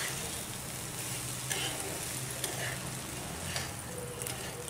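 Roasted vermicelli and vegetables being stirred and tossed with a spatula in a non-stick kadhai, over a steady low sizzle of frying, with a scrape of the spatula against the pan about once a second.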